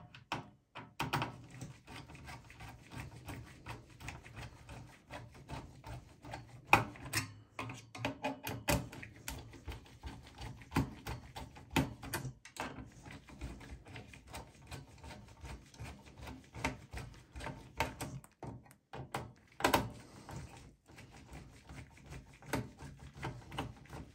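Screwdriver turning out the Torx screws of a desktop CPU cooler: a string of small, irregular metal clicks and ticks, with a few louder clicks.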